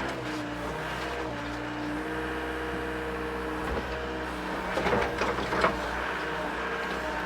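Mini excavator's diesel engine running steadily under hydraulic load, its pitch shifting as the machine strains to pry a tree stump loose, with a few knocks and cracks about five seconds in.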